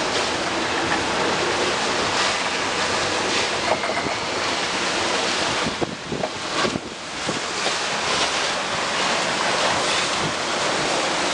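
Wind buffeting the microphone over the steady rush of sea water around a sailing yacht under way, with a few brief knocks around the middle.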